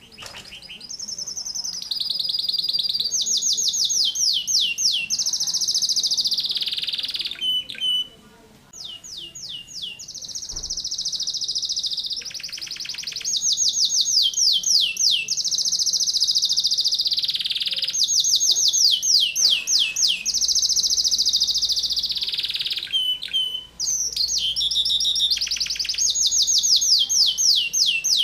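Domestic canary singing long phrases of high, rapidly repeated chopped notes and rolling trills, with short pauses about eight seconds in and near the end.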